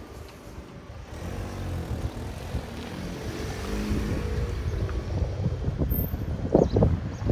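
A motor vehicle's engine drones past close by on the street, growing louder from about a second in, with a few loud low bursts of rumble near the end.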